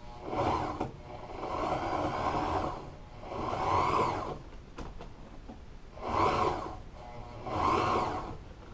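Walking-foot sewing machine stitching through vinyl in five short runs with brief pauses between, going slowly to keep the foot in a curved French seam.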